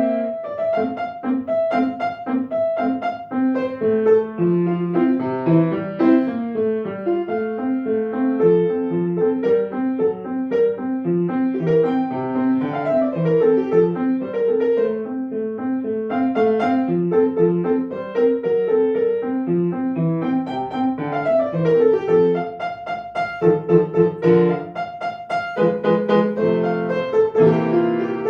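Solo piano playing a classical piece: a continuous stream of quick notes in the middle register, melody over a running accompaniment.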